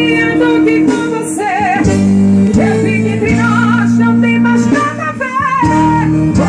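Loud music with singing and guitar, played through a Volkswagen Saveiro G4 pickup's car audio system.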